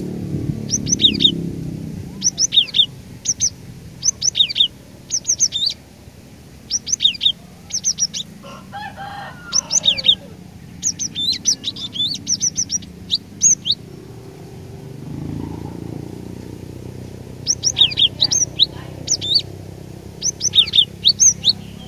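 Cinereous tit singing loud, sharp high notes in quick repeated two- and three-note phrases, with a pause of a few seconds past the middle before the song resumes.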